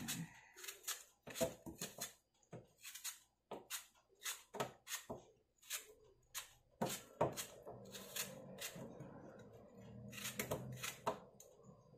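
Handheld vegetable peeler scraping the skin off an apple: an irregular series of short, rasping strokes, about two a second.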